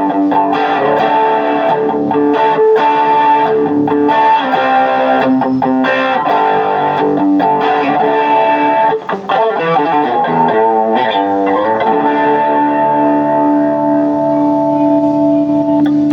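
J-Craft T-3V Telecaster-style electric guitar played through an amp with light overdrive: picked chords and held notes, with a quick run of single notes about two-thirds of the way through, ending on a long sustained chord.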